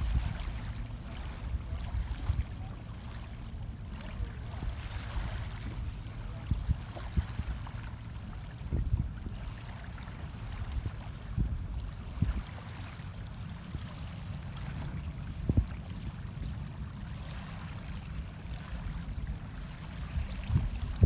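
Wind buffeting the microphone in uneven gusts, over small waves lapping at a lake shore.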